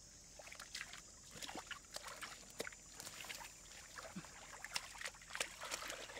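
Water sloshing and trickling in small, irregular splashes and drips, with scattered short clicks.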